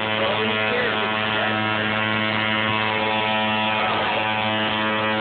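Coil tattoo machine buzzing steadily with a low, even drone as it works ink into the skin.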